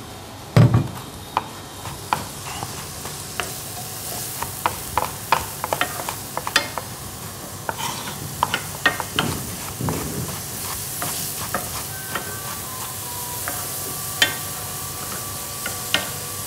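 Kitchen knife dicing tomatoes on a wooden cutting board: irregular taps of the blade against the board, with a heavy thud about half a second in. Under it, a steady sizzle of onions frying in butter in a pan.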